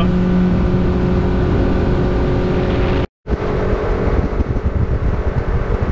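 Outboard motor of a small fishing boat running at speed, a steady drone over a buffeting low rumble of wind on the microphone. It breaks off for a moment about three seconds in and then resumes.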